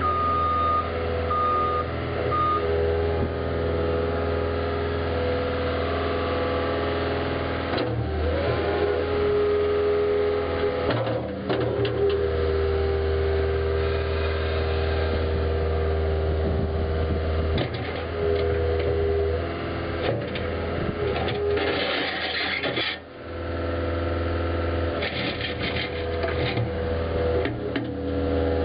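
Caterpillar 289C2 compact track loader's diesel engine running, its pitch shifting several times as it works. A beeping alarm sounds a few times near the start.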